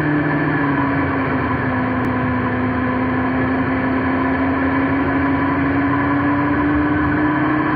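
Motorcycle engine running steadily at road speed, its pitch rising slowly, under a constant rush of wind noise.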